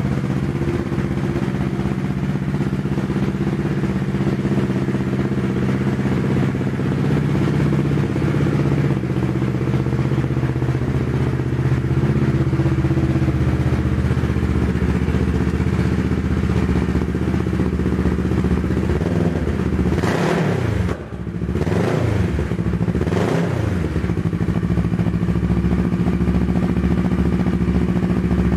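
2013 Kawasaki Ninja 650's parallel-twin engine idling steadily, then revved up and back down twice near the end before settling back to idle.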